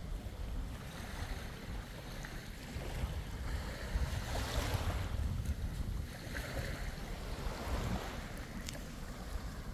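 Sea waves washing in, one swell about four seconds in and another starting near the end, over a steady low rumble of wind on the microphone.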